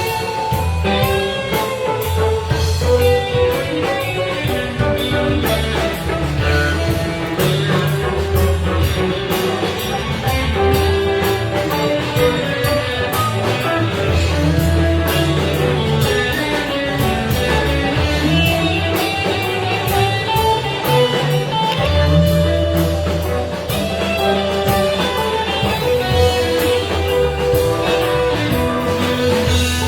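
Live band playing blues rock: guitar lines over bass and drum kit.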